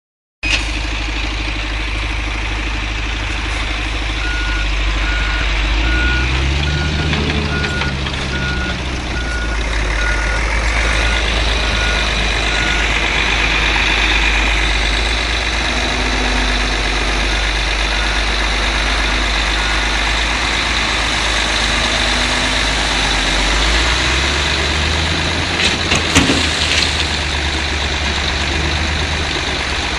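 Heavy diesel engines of a Komatsu D65EX bulldozer and a Mercedes-Benz Actros 8x2 tipper truck running, with a vehicle's reversing alarm beeping steadily from about four seconds in for nearly ten seconds and briefly again a little later. Near the end the truck's engine runs harder as the tipper body rises, with a few knocks.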